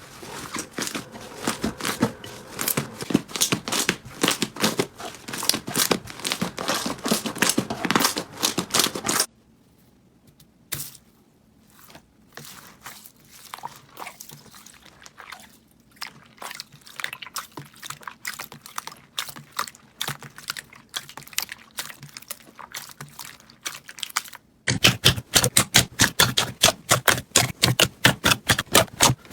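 Crunchy slime being squeezed and pressed, giving dense crackling and popping. About nine seconds in it turns quieter and sparser, and near the end it changes to a fast, even run of loud clicks.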